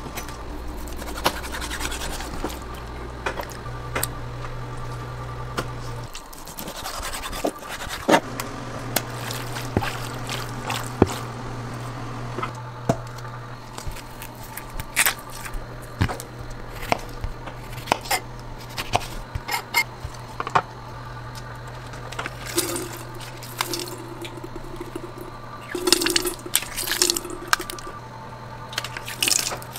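Kitchen work sounds over a steady low equipment hum: repeated knocks and taps of gloved hands, food and a knife on plastic cutting boards. In the last few seconds citrus halves are squeezed in a handheld press, with juice dripping and splashing into a stainless steel pot.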